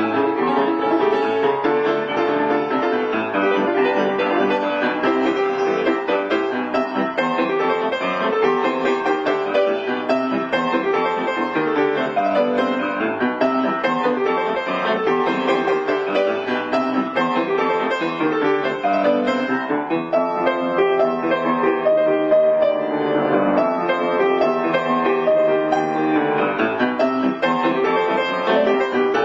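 Piano music: a continuous piece of many quick notes and chords.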